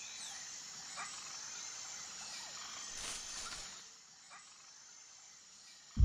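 Faint outdoor nature ambience: a few short animal chirps over thin, high, steady trilling, with a brief soft rushing swell about three seconds in, after which it goes quieter.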